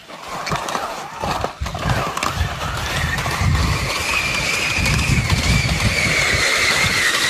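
Skis sliding downhill over packed, tracked snow: a hiss and scrape that grows louder as the run picks up, with wind buffeting the microphone in low rumbles. About three seconds in, a high whistling whine joins and slowly falls in pitch.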